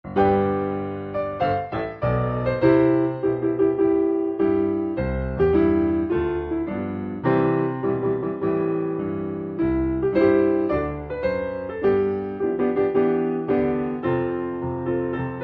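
Solo piano music that starts abruptly out of silence, playing chords under a melody; each struck note rings and fades.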